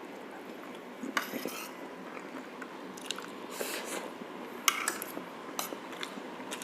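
Close-miked eating: a person biting and chewing braised pork shank, with a handful of short clicks and scrapes of utensils or a plate scattered through.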